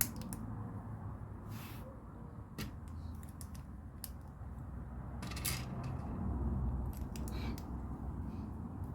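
Plastic LEGO pieces being handled and pressed together: irregular small clicks and a few short rustles, over a low steady hum.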